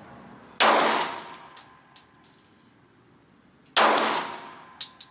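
Two pistol shots from a Zev Tech-modified Glock 27 subcompact in .40 S&W, about three seconds apart. Each shot trails off in an echo, and a few faint ticks follow.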